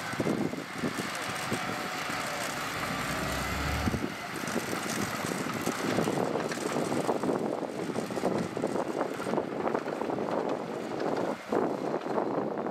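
Diesel engine of small earthmoving equipment running steadily. About four seconds in, a deep low hum drops away and a denser clatter carries on.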